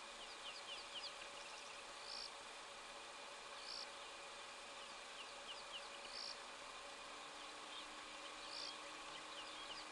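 Faint bush ambience: birds calling with a short high note about every two seconds and scattered runs of quick falling chirps, over a steady insect-like hiss.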